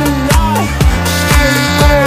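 Background electronic music with a steady beat, a bass line and a melody that slides up and down in pitch.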